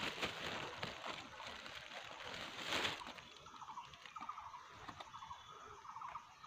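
Faint rustling and scattered light clicks of someone moving through forest undergrowth, with one louder rustle about three seconds in, and a run of faint short bird chirps in the second half.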